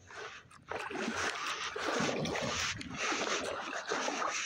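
Water splashing and sloshing around an inflatable kayak as it moves through the water, starting suddenly under a second in and continuing busily.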